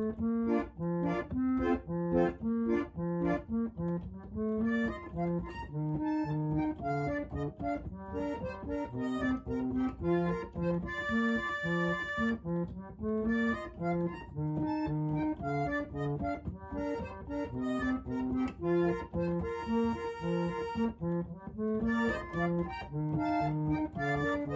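Background music: a bouncy instrumental tune with a steady beat, broken twice by long held chords.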